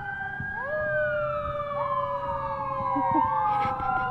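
Fire truck sirens: several wails overlapping out of step, each slowly rising and falling in pitch.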